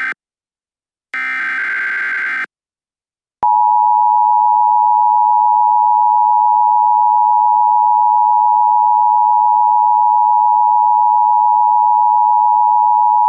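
Emergency Alert System SAME header: the end of one digital data burst, then one more burst of about a second and a half after a short gap. About three seconds in, the steady two-tone EAS attention signal starts and holds without a break to the end.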